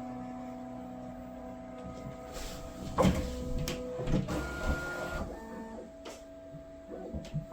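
Bambu P1S 3D printer running its calibration self-test: its motors hum steady tones, then shift through a series of different pitches, the vibration calibration. A knock about three seconds in.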